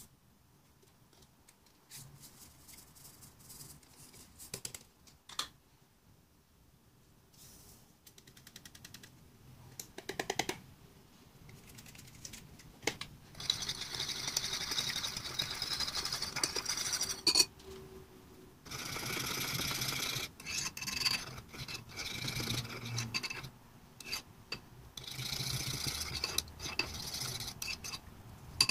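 Metal teaspoons stirring and scraping against ceramic bowls, dissolving dry yeast, salt and sugar in water. A few light taps and clinks come first, then from about halfway through there are stretches of quick, rhythmic scraping with small clinks.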